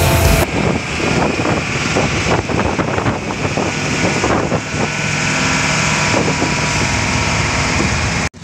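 Engine and road noise of a moving truck, heard from its open cargo bed, with wind buffeting the microphone. The running noise is steady and cuts out briefly near the end.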